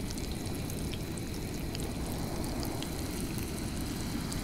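Hot oil frying catfish pieces in a small pan over a canister camp stove: a steady low rush with faint, scattered crackles.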